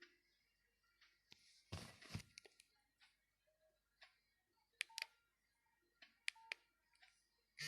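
Nokia 6500 Slide mobile phone keypad: a soft click about two seconds in, then two pairs of sharp key clicks with short beeps, between stretches of near silence.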